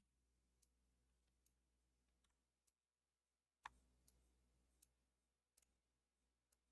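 Near silence with a few faint, scattered computer mouse clicks. The loudest comes a little past halfway through.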